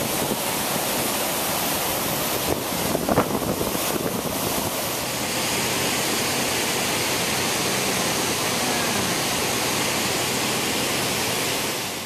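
Rain-swollen waterfall and stream rushing steadily, a constant hiss of white water. A few bumps on the microphone, likely from wind, come about three seconds in.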